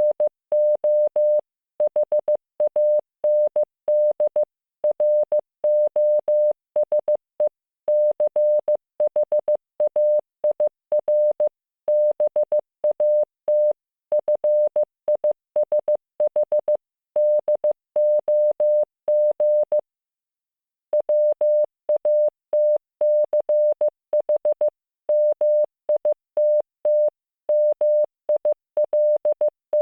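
Computer-generated Morse code (CW) tone from training software: a single steady mid-pitched tone keyed on and off in dots and dashes, spelling out English words with short gaps between them. About twenty seconds in there is a pause of roughly a second before the sending resumes.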